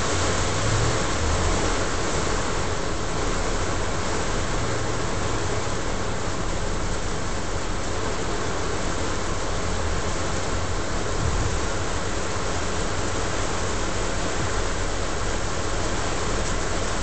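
Heavy rain on a car's roof and windshield heard from inside the car, a steady rushing hiss, with a low hum of the car underneath.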